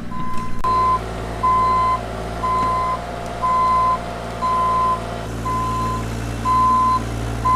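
Backup alarm on a diesel construction machine beeping steadily, about once a second, each beep about half a second long, over the machine's engine running; the engine note picks up a little about five seconds in. The beeping means the machine is reversing.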